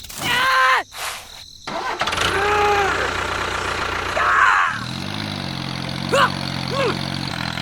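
An engine starts up about two seconds in and runs, settling into a steady, even idle hum from about halfway. Short high gliding squeaks and calls sound over it.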